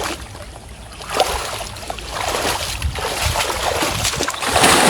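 Water splashing and sloshing, with a few short knocks; the splashing grows much louder near the end.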